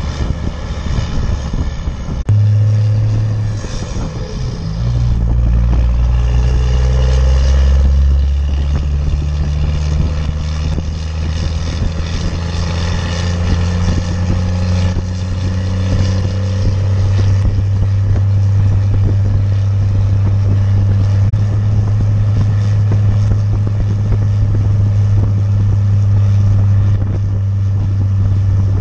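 1995 Dodge Ram 3500's 12-valve Cummins 5.9 inline-six diesel, with a 5-inch exhaust, running under load while towing about 12,000 lb. Its note changes suddenly about two seconds in and again a couple of seconds later, then holds as a steady low drone.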